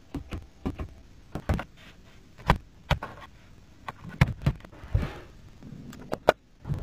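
A string of short, sharp clicks and taps from a Mercedes-Benz GLB's cabin controls being handled: the steering-column gear selector stalk, a phone set down on the console charging tray, and the engine start/stop button being pressed near the end.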